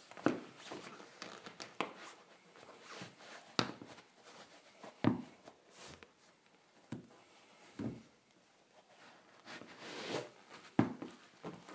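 Nike Air Max 2013 sneakers stepping and shifting on a hardwood floor: irregular soft knocks and scuffs of the rubber soles, with a few sharper taps.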